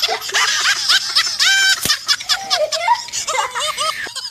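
Laughter and high-pitched giggling, much of it from a baby, in short repeated peals throughout.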